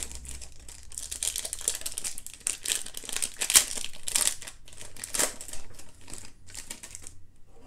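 Foil baseball card pack wrapper being torn open and crinkled by hand, a dense crackling that dies away near the end.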